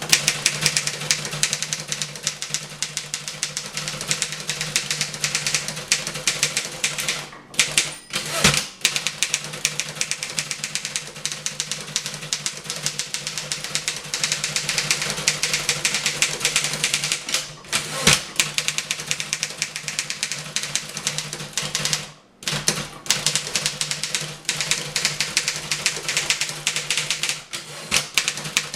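1912 Underwood No. 5 manual typewriter typed at top speed: a rapid, continuous clatter of keystrokes, broken by a few brief pauses and a couple of louder single knocks. A steady low hum runs underneath.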